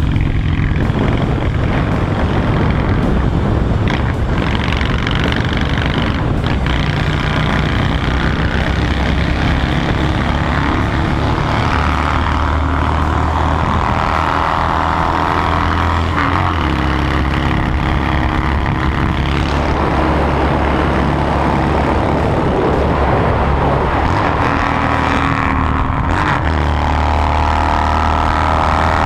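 Honda Shadow 750 V-twin running under way through a loud modified exhaust with a fishtail tip, its revs climbing and dropping back several times.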